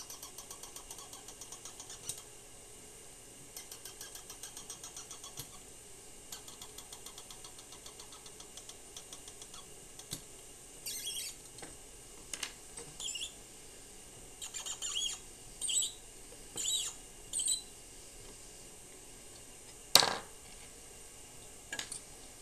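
Spindle of a brass Svea 123R stove being turned with its key to set the cleaning needle: runs of rapid fine ticking, then a string of short high squeaks from the brand-new graphite spindle packing, which has not yet worn in. One sharp click comes near the end.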